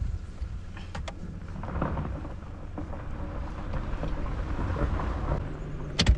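Low rumble of a vehicle driving slowly, tires and suspension rolling over the road surface, with a sharp knock about a second in and a louder one near the end.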